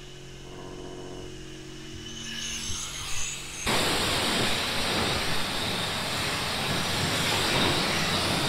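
Cleaning equipment working on the dirt-covered air intake box: a low steady machine hum, a couple of knocks, then about three and a half seconds in a loud steady rushing hiss switches on suddenly and keeps going.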